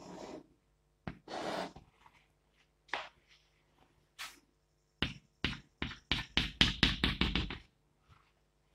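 Chalk on a chalkboard: a few short scratchy drawing strokes, then a quick run of about a dozen sharp taps as the chalk dots out a dashed line, the loudest part.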